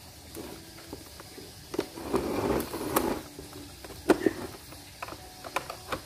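Rusty metal-wire bird cage being taken apart by hand: scattered clicks and knocks of its parts, a rattling scrape about two seconds in, and a sharp click about four seconds in.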